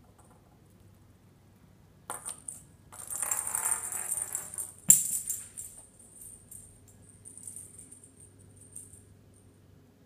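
Jingling rattle of a plastic toy ball with a bell inside as it is knocked and rolled across a stone countertop, in bursts, loudest about halfway through and ending in a sharp knock, then fainter jingles.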